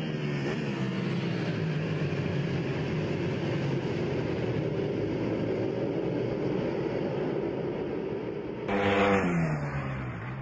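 Racing superbike engines at high revs. About nine seconds in, one bike passes close, louder, its pitch falling as it goes by.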